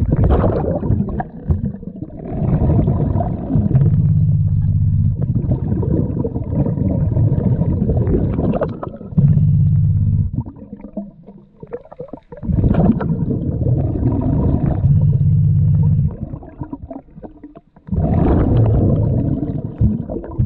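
A diver breathing through an underwater regulator: hissing breaths and low, gurgling rumbles of exhaled bubbles, in three long cycles with short pauses between them.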